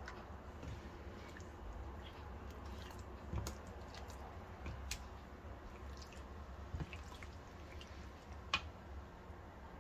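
Soft wet squishing and small clicks of a silicone basting brush spreading thick spice-paste marinade over raw chicken legs in a plastic bowl, with a sharper tap about eight and a half seconds in.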